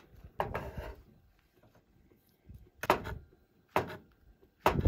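Chef's knife on a wooden cutting board: a short scrape about half a second in, then three sharp chops about a second apart.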